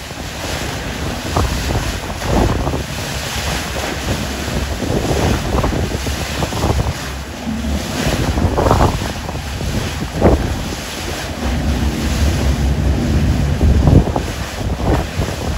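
Wind buffeting the microphone over the rush and splash of rough sea, as a pilot boat's hull pounds through the waves and throws up spray alongside. The noise surges unevenly in gusts throughout.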